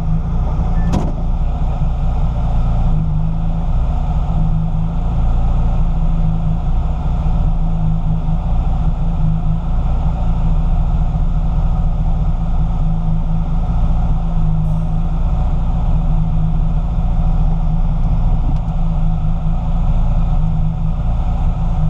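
Porsche 993 RS Clubsport's rebuilt 3.8-litre air-cooled flat-six running steadily at an even pitch, with two brief clicks, one about a second in and a fainter one midway.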